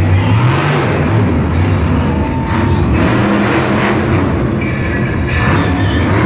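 Monster truck engines running loud and revving, one truck driving across the dirt arena floor, with the heavy rumble echoing around the arena.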